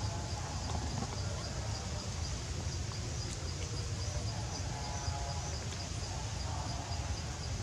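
An insect chirping in a steady, evenly spaced high pulse over a constant low rumble, with a few faint short calls in the background.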